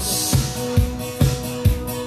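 Upbeat instrumental music with a steady kick drum beating a little over twice a second under sustained keyboard and bass notes, with a cymbal crash at the start.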